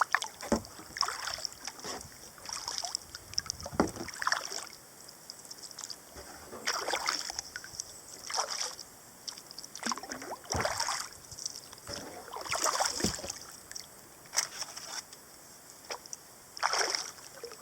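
Kayak paddle strokes: the blades dip and pull through the water in turn, about one swish every two seconds, with water dripping off the paddle.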